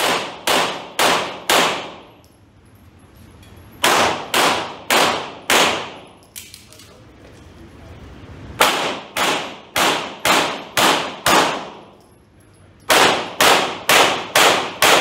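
Handgun fired in quick strings of four to seven shots, roughly two a second, with pauses of a second or two between strings as the shooter moves between positions. Each shot echoes in the indoor range.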